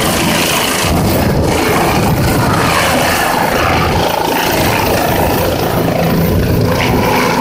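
Light four-bladed helicopter coming in low to land: loud, steady main-rotor and turbine engine noise close by.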